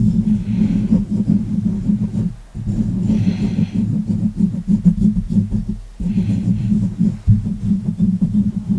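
Hands and fingers rubbing close against the microphone, a low rumbling, crackly texture in long strokes that break off briefly about two and a half and six seconds in.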